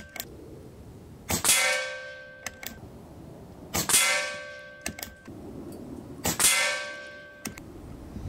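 AEA HP Standard Custom regulated PCP air rifle fired three times, about two and a half seconds apart. Each shot is a sharp crack followed by a metallic ringing that fades over about a second, and a couple of light clicks come after each one.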